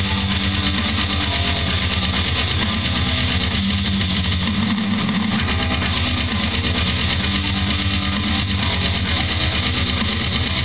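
Distorted electric guitar playing a fast, low metal riff with rapid picking.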